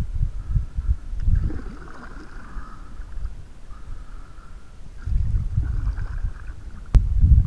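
Canoe paddle strokes through calm water, with wind gusts buffeting the microphone in low rumbles that come and go. A single sharp click near the end.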